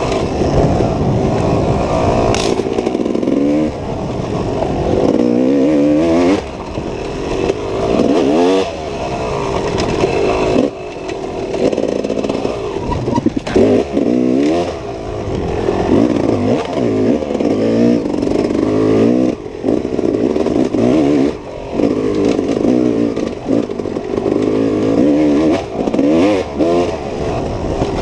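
Dirt bike engine being ridden hard, its pitch climbing and falling back again and again every second or two as the throttle is worked, with short drops in loudness between pulls.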